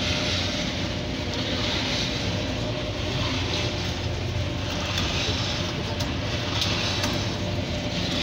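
Ferry's engine droning steadily under way, with a rushing noise of wind and water that swells and fades every second or two.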